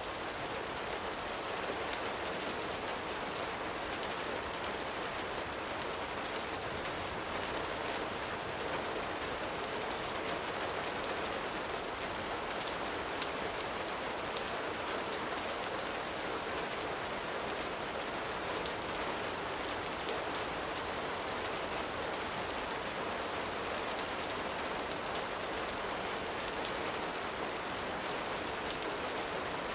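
Steady gentle rain, an even hiss with many scattered light ticks.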